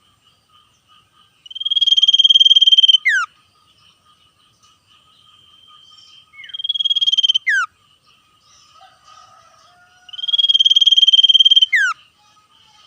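Common iora (sirtu/cipoh) singing its fast trill ('ngetir'). There are three long, rapid trills, each about a second and a half, and each ends in a sharp whistle sweeping steeply down in pitch. Faint steady high tones run underneath.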